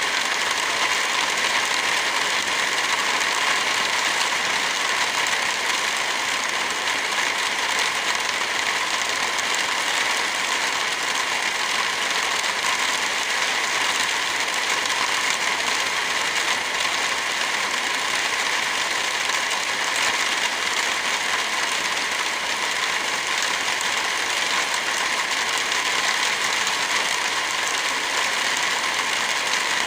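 Steady rain hiss with a wood fire crackling in small, quick ticks.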